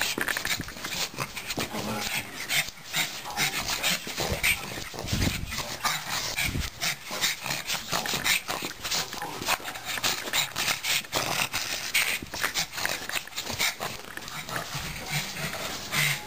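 A pug vocalising during rough play, over many quick rustles and knocks close to the microphone.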